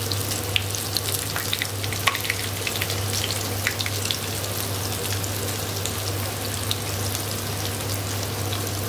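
Flour-coated chicken leg piece deep-frying in hot oil just after being lowered in: a steady sizzle with many small crackles and pops. A steady low hum runs underneath.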